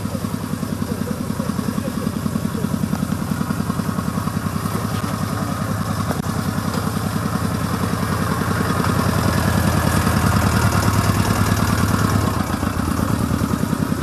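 Off-road quad's engine running with a steady, rapid firing beat. It gets louder from about eight seconds in, then drops back about twelve seconds in.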